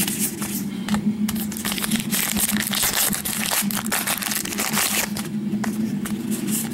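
Crinkling and rustling of a trading-card pack's wrapper and cards being handled, made up of dense, irregular crackles over a steady low hum.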